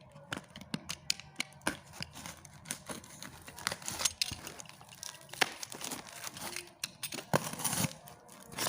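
Packaging being torn open and crinkled by hand: irregular rustling and crackling with many sharp clicks.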